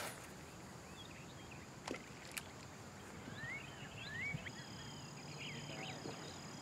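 Faint outdoor ambience with a few soft clicks early on, then scattered short bird chirps and a thin steady high tone in the second half.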